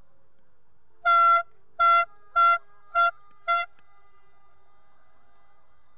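Car horn honking five short blasts in quick succession, each a little shorter than the one before, a single steady pitch.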